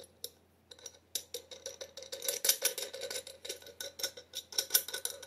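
Steel hex nut being spun by hand down a threaded eye bolt onto a washer seated on a terracotta pot, a fast irregular run of small metallic clicks and rattles that starts about a second in.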